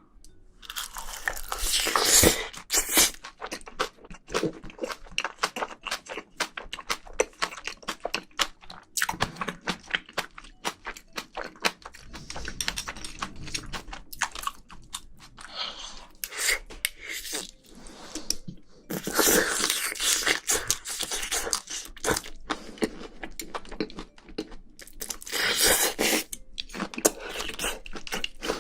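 Close-miked chewing and crunching of a mouthful of spicy braised seafood and rice: irregular wet clicks and crunches, with louder stretches about two seconds in, around two-thirds of the way through and near the end.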